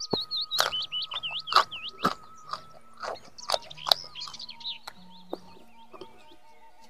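Crunching and chewing of raw vegetables in a person's mouth: a rapid series of sharp crunches through the first four seconds or so, thinning to a few softer bites and then stopping about five seconds in.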